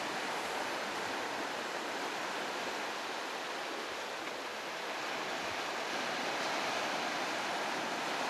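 Ocean surf breaking and washing over a sandy beach: a steady rush of water that eases slightly about halfway through and swells again afterwards.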